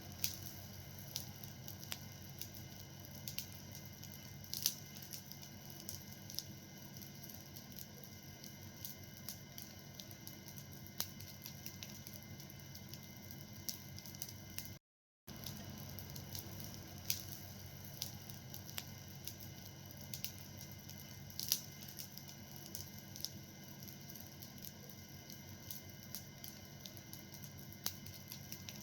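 A fire burning and crackling, with irregular small pops and snaps over a steady soft hiss, and a brief break to silence about halfway through.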